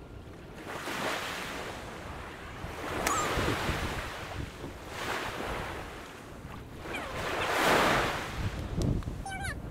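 Small waves breaking and washing up the beach in surges every two to three seconds, the loudest about eight seconds in, with wind buffeting the microphone. A brief high call sounds shortly before the end.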